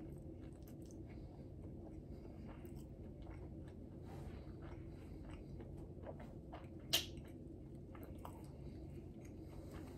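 A person chewing a nori-wrapped salmon rice ball: faint, soft crunching and mouth noises, with one sharp click about seven seconds in.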